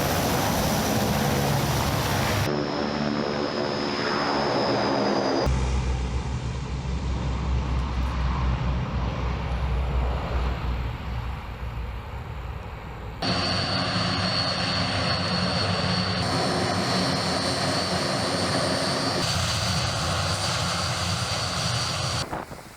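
Military aircraft engines running, heard in several short shots spliced together, so the engine sound changes abruptly at each cut.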